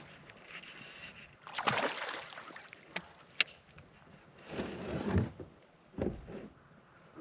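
Water sloshing and splashing against a kayak in three bursts, with two sharp clicks in between.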